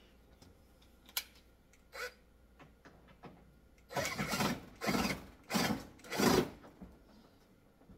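Cordless drill/driver running in four short bursts in quick succession, driving a screw part-way into a tanning bed canopy panel. A couple of faint clicks come before it.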